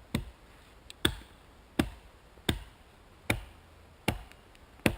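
A blade chopping into a piece of wood with steady, sharp strikes, seven of them about three-quarters of a second apart.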